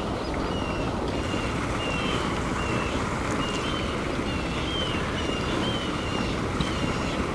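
Steady rushing outdoor noise, mostly wind buffeting the microphone, with short high chirps repeating every half second to second throughout.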